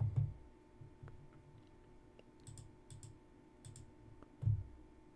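A few sharp computer mouse clicks, each a quick double tick of press and release, near the middle. There are dull low thumps at the start and about four and a half seconds in, over a faint steady hum.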